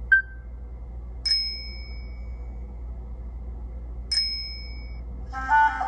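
Nokia Lumia 1520 (Windows Phone 8) ringtone: a short high blip, then two identical bell-like dings about three seconds apart, each ringing out and fading. Near the end a woodwind-like melody starts.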